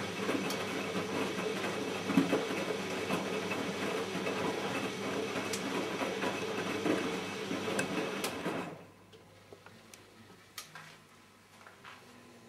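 Siemens Siwamat 960 washing machine in its main wash: the drum turns with the laundry tumbling and knocking, then stops about nine seconds in, leaving only a few faint clicks during the rest between turns.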